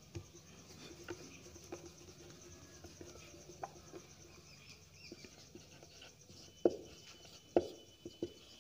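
Marker writing on a whiteboard: faint scratching strokes and light taps, with a few sharper taps in the last two seconds.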